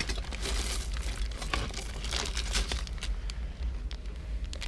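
Hands rummaging through a box of old jewelry: crinkling and many light clicks and ticks, busier in the first half and thinner after.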